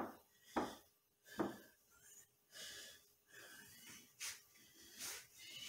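A man breathing hard, quick loud breaths in and out under a second apart, the first few sharp and forceful: he is winded from exercise.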